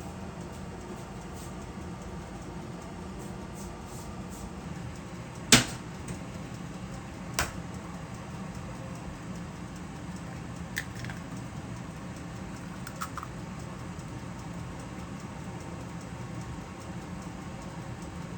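Steady low hum with a sharp knock about five and a half seconds in, a smaller knock about two seconds later, and a few faint clicks after that.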